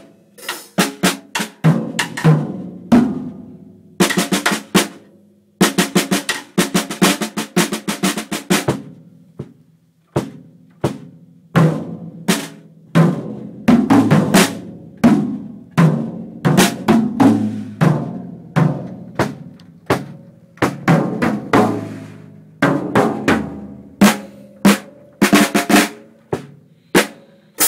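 A boy playing an acoustic drum kit: snare, toms, bass drum and cymbals struck in fast rolls and busy fills, with brief pauses between runs.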